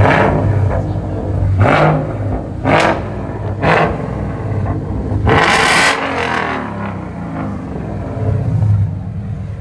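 Car engine idling with a low note, revved in about five short bursts, the last one longer.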